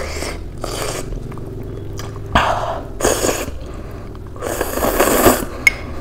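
A person slurping soupy Maggi instant noodles off a spoon in a string of separate noisy slurps, with chewing between them. The longest slurp comes near the end.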